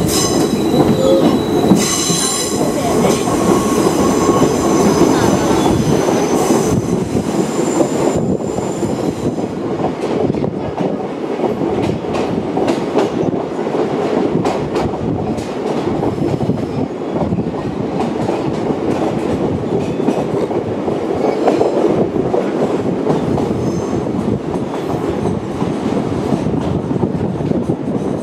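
Open-air trolley cars of a sightseeing train running on the rails: a steady rumble of wheels on track. High-pitched wheel squeal is heard for roughly the first nine seconds, then scattered clicks of the wheels over rail joints.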